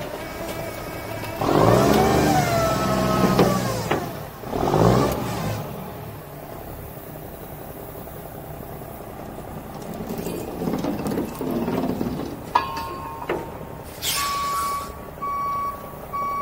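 Straight-piped Cummins diesel of a Kenworth C500 winch truck revving up and back down several times, with pitch rising and falling. Near the end there is a short hiss of air, then a backup alarm beeping about once a second as the truck reverses.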